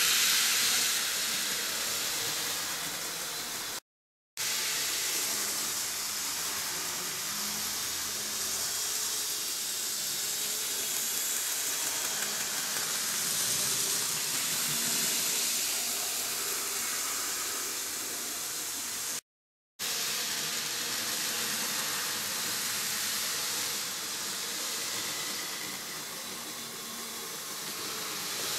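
N-gauge model trains running on plastic sectional track: a steady whirring hiss of small motors and wheels on rail, loudest near the start as a train passes close. The sound drops out briefly twice.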